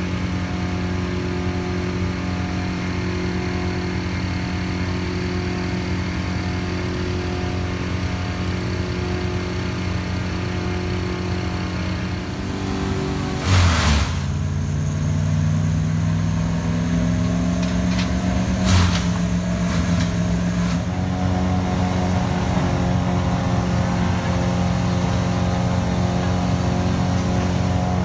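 A large engine of the tree-work machinery runs steadily. About halfway through there is a loud thud, after which the engine speeds up, its pitch rising over a few seconds and then holding higher, with a few sharp clacks.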